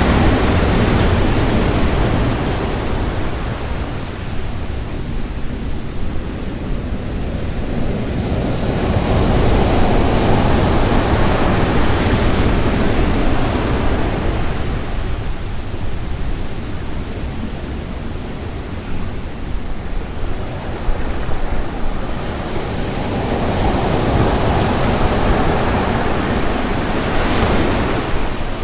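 Surf of the North Sea washing onto the beach, swelling up twice in long surges, with wind buffeting the microphone throughout.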